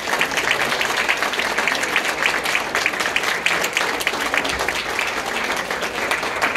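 A roomful of people clapping and applauding, many quick claps blended into one steady wash of sound.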